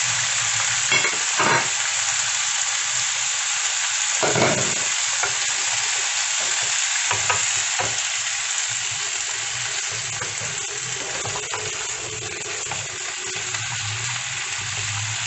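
Shrimp and squid frying in hot oil with a steady sizzle, while a utensil stirs them and knocks briefly against the pan a few times.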